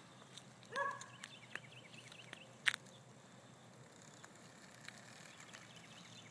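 Quiet outdoor background with a short animal call about a second in, followed by a quick run of bird chirps. A single sharp click, the loudest sound, comes a little before the middle, with a few fainter clicks later.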